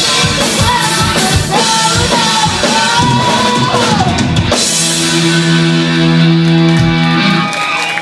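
Live rock band of two electric guitars, electric bass, drum kit and a female lead vocal playing the last bars of a song. The singing stops about halfway through, the band holds a final chord for a few seconds, and it cuts off shortly before the end.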